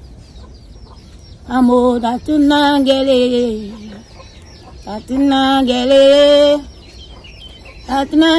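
A rooster crowing, three crows a few seconds apart. Each crow is a loud drawn-out call that drops in pitch at its end. The first opens with a short note before the long one.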